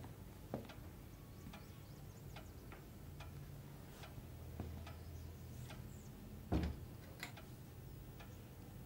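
Faint ticking at a little under one tick a second, and a wooden door pushed shut, closing with a dull thud about six and a half seconds in.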